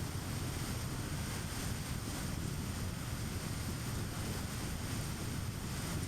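Car driving at steady speed: a constant low rumble of tyres on the road with wind noise over it, unchanging throughout.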